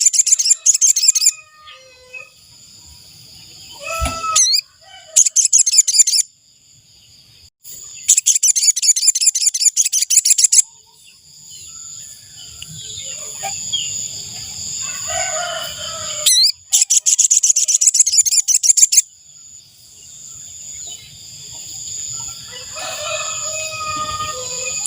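Sogon bird song played as a trapping lure: fast trains of high chirps in four bursts of one to three seconds each, over a steady high tone. Fainter, lower bird calls come in the gaps.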